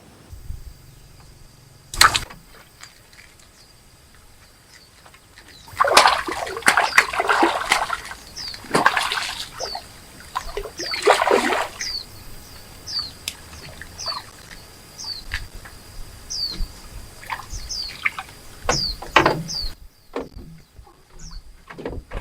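Water splashing and sloshing in several loud bursts, after a single sharp knock about two seconds in. Short, falling high chirps repeat about once a second through the middle and later part.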